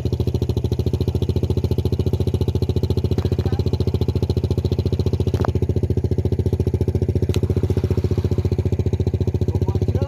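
Single-cylinder diesel engine of a two-wheel walking tractor (koyun) running steadily, with an even, rapid throb. A couple of sharp clicks and a brief voice come over it.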